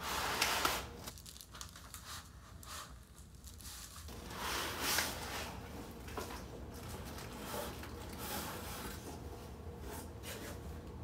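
Cardboard box packaging and foam inserts rustling and scraping as a new laptop is unpacked, with paper crinkling; louder bursts in the first second and again around five seconds in.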